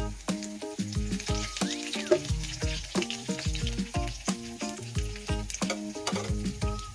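Chopped garlic sizzling in hot oil in a non-stick wok, stirred now and then with a spoon, under background music with a steady beat and deep bass.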